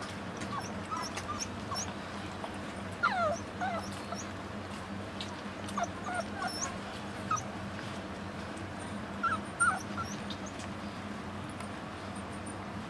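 Young puppies, about five weeks old, whimpering: short high squeaks that slide downward, coming in small clusters about three, six and nine seconds in.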